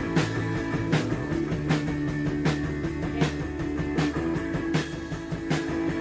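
Background music: a guitar song with a steady drum beat, a hit roughly every three-quarters of a second.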